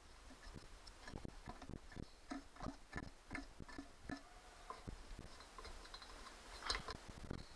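Irregular light clicks, taps and clinks of a screwdriver and gloved hands working on the plastic shroud and metal parts of a lawnmower engine that is not running, with a sharper clack near the end.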